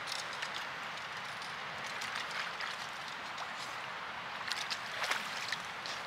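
Small forest stream running with a steady trickle, broken by scattered small splashes and clicks, a handful of them close together near the end.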